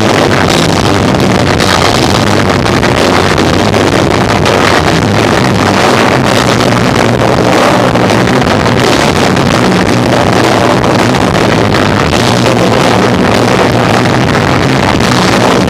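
Live rock band with electric guitar, bass and drums playing loud, recorded so overloaded and distorted that it comes out as a dense, steady wash of noise with low bass notes underneath.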